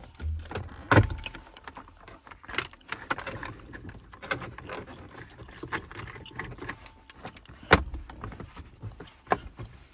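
Plastic dashboard trim being handled and pressed back into its clips, a scatter of irregular clicks and knocks with two sharper clunks, one about a second in and one near the end.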